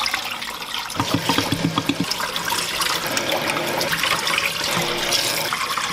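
Cloudy, starchy rinse water pouring in a steady splashing stream from a tilted pot into a stainless steel sink, with the rice held back by hand as it is drained. The pour turns choppier for about a second, starting a second in.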